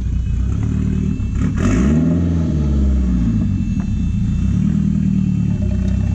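Turbocharged Honda F20C four-cylinder engine of a drift truck running low under load, revving up and back down once about two seconds in.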